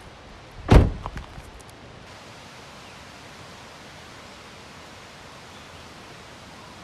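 A single heavy thump with a few light knocks about a second in, then the steady, even rushing of a mountain stream.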